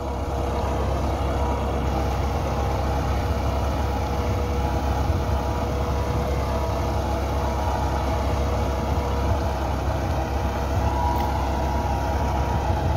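Massey Ferguson 375 tractor's Perkins four-cylinder diesel running steadily under load as it pulls a leveller through a flooded rice paddy: an even, deep engine drone with a steady hum over it.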